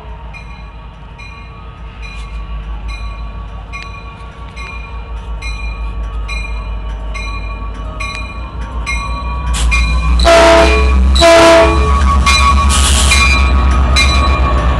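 Metrolink diesel locomotive arriving at a station platform: its bell rings steadily while the engine grows louder as it approaches. Two short horn blasts sound about ten and eleven and a half seconds in, and then the engine rumbles loudly as the locomotive passes close by, with the bell still ringing.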